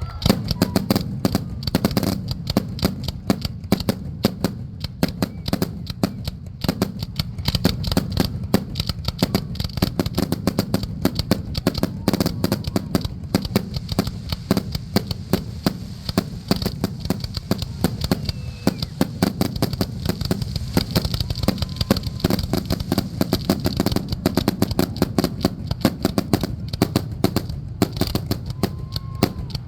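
Fireworks display going off in a dense, unbroken barrage: many sharp bangs and crackles a second over a constant deep rumble of shell bursts.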